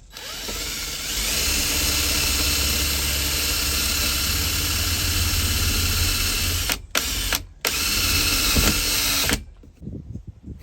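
Power drill running under load, most likely driving a self-tapping screw through a wooden furring strip into the van's steel framing. It winds up over the first second and runs steadily. Near the end it cuts out briefly twice, then stops abruptly.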